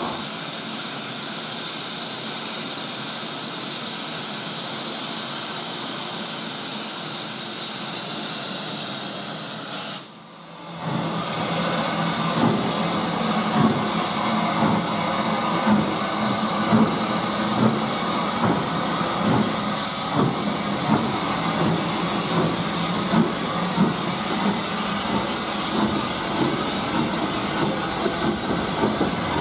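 L&YR Aspinall Class 27 0-6-0 steam locomotive standing with steam hissing loudly and steadily. After a sudden break about ten seconds in, it starts away: irregular exhaust beats come more often as it gathers pace.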